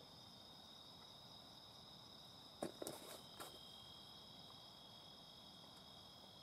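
Night insects such as crickets chirring in a steady high-pitched drone, two constant tones. A few quick clicks or rustles come about two and a half to three and a half seconds in.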